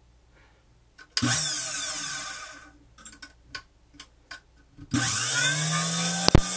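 Vintage Hamilton Beach Model 30 milkshake mixer motor switched on and off. A loud high whir starts about a second in and dies away, a few clicks follow, then the motor spins up again about five seconds in and runs steadily, with two sharp clicks near the end.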